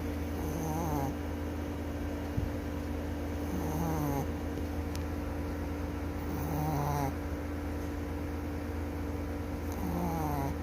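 Chihuahua snoring: four snores about three seconds apart, each with a falling pitch, over a steady low hum.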